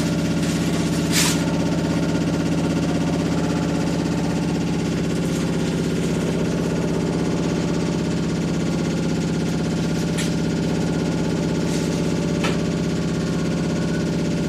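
Washing machine running with a loud, steady, synth-like droning hum, broken by a few brief clicks or rattles about a second in and twice near the end.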